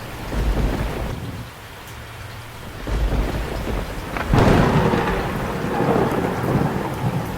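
Thunderstorm with heavy rain hissing throughout: two low rolls of thunder in the first few seconds, then a sudden loud thunderclap a little past halfway that keeps rumbling.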